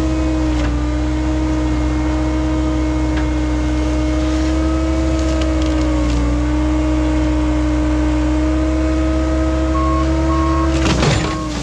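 Skid steer engine running steadily at high revs with a strong, even drone. A short rough burst of noise comes near the end, after which the note dips a little.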